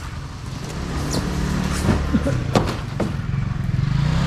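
A vehicle engine running with a steady low hum that rises in pitch near the end, with about three sharp knocks from styrofoam boxes being handled on a truck's metal roller conveyor.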